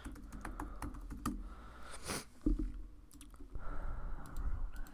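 Typing on a laptop keyboard: a quick run of key clicks in the first second or so, then a soft thump and a few scattered clicks.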